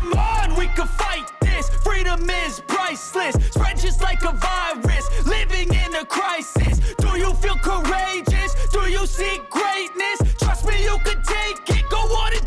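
Background hip hop music with a heavy, repeating bass beat.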